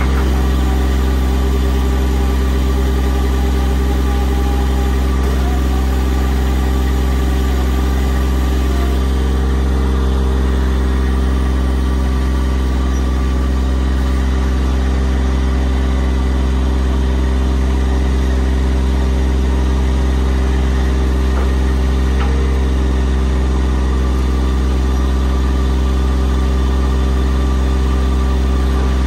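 Diesel engine running steadily at a constant idle, a low even drone with no change in speed.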